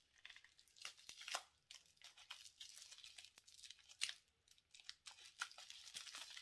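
Small scissors snipping through clear plastic wrapping on a jar, and the wrapping crinkling and tearing as it is pulled away, in soft, irregular crackles with a few sharper snaps.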